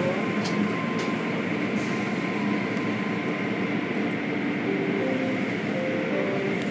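Automatic car wash heard from inside the car: cloth wash strips swishing and slapping across the body and windows, over a steady rumble of spray and machinery, with a few sharp knocks in the first second or two.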